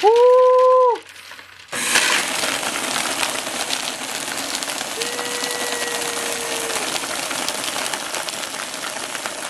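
Countertop blender crushing ice in a syrupy drink into slush. It runs for about a second, stops briefly, then runs on steadily.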